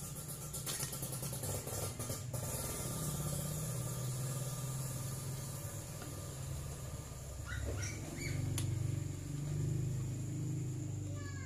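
Quick run of small clicks for the first two seconds, as the carburettor and parts of a two-stroke grass-trimmer engine are worked by hand, over a low steady hum. A small bird chirps a few short notes about eight seconds in and again at the end.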